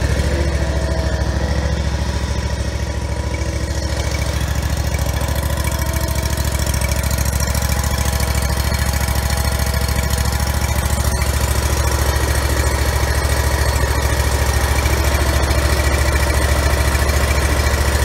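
Kawasaki engine of a Hustler X-ONE zero-turn mower running steadily at idle, warming up just after a cold start on the choke.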